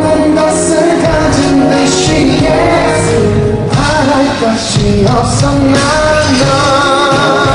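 Live band music with a singer's vocal over a dense mix, and acoustic guitar on stage; the sung line comes through most strongly in the second half.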